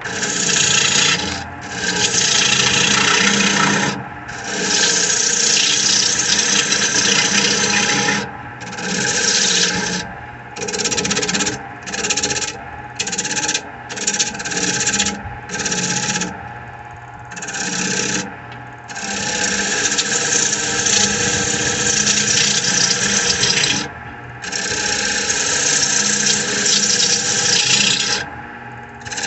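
Gouge cutting into dry spalted birch spinning on a wood lathe while the bowl's inside is hollowed: a loud rough hiss of shavings in runs of several seconds broken by short pauses, with a string of quick short cuts through the middle. The lathe's motor hums steadily underneath.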